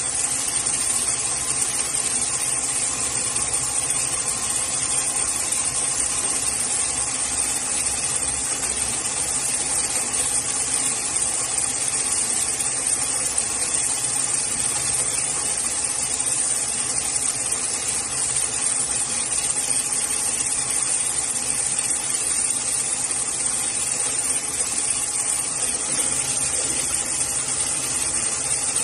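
Steady machinery hiss with a faint even hum, without any stitching rhythm.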